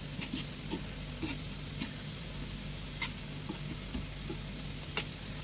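Sliced onions frying in oil in a nonstick pan, sizzling steadily as they are stirred, with irregular sharp clicks from the stirring. A steady low hum runs underneath.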